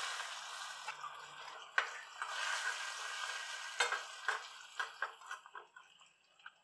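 Tadka sizzling: garlic, dried red chilli and fresh coriander leaves frying in hot ghee in a pan. A ladle stirs them, scraping and clicking against the pan several times. The sizzle dies down near the end, leaving only a few clicks of the ladle.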